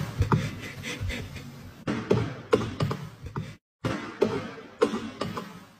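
A baby goat's small hooves tapping and clattering irregularly on a hardwood floor. The sound cuts out for a moment about three and a half seconds in, then the tapping resumes.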